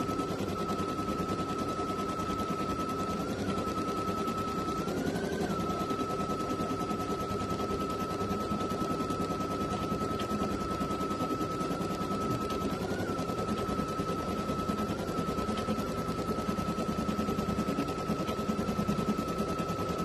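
Baby Lock Flare embroidery machine stitching a quilting design in the hoop: a rapid, even needle clatter over a steady high motor whine that briefly rises in pitch a few times.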